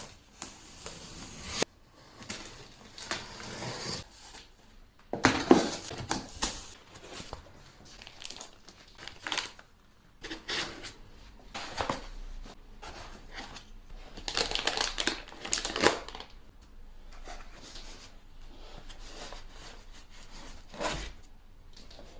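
A 3D printer being unpacked by hand: packaging crinkling and rustling in irregular bursts, with scattered knocks and clicks.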